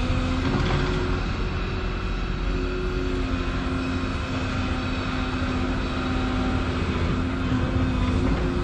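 Volvo 235EL excavator running under work: a steady diesel drone with held hydraulic tones that shift in pitch now and then.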